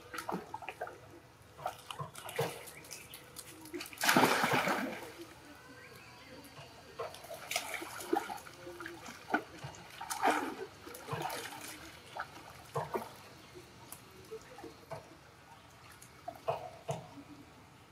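Macaques splashing in a shallow pool, with one big splash about four seconds in and smaller splashes and drips around it.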